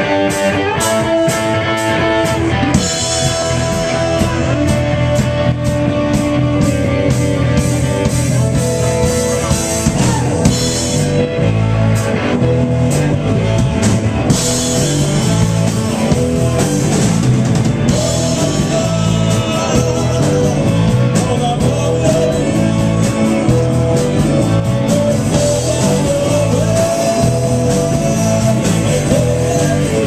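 Live rock band playing loudly: electric guitar, bass guitar, saxophone and drum kit.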